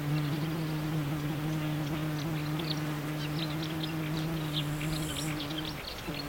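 A flying insect such as a bee or fly buzzing close by: a steady low hum that breaks off briefly near the end. Quick high bird notes chatter behind it.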